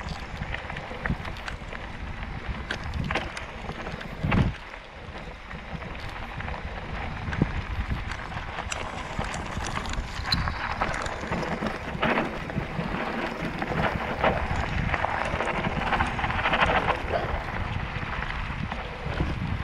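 Mountain bike riding downhill on a rough dirt and gravel track: wind buffeting the camera microphone over the tyres crunching on stones and the bike rattling over bumps, with a heavy thump about four seconds in.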